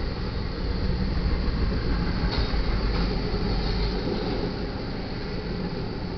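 BNSF intermodal freight train rolling past: a steady loud rumble and rattle of cars and wheels on the rails, with one sharp click about two and a half seconds in.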